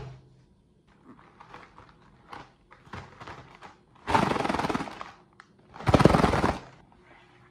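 A cardboard box of Oreo cookies handled with light taps and scrapes, then shaken twice, about a second each time, the cookies rattling inside.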